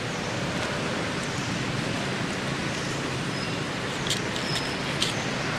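Steady hiss of outdoor background noise, with a few faint ticks about four to five seconds in.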